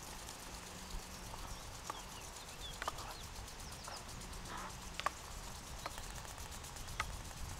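Wooden spatula stirring a cream sauce in the small pan of a Trangia Mini camping stove, knocking sharply against the pan every second or two over a low steady rumble.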